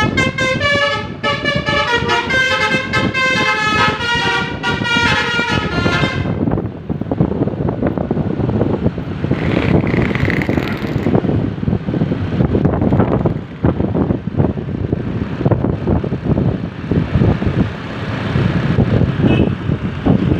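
A bus's basuri telolet horn, a set of several air-horn trumpets, plays a quick stepping melody for about six seconds and then stops. Vehicle engine and road noise carries on after it.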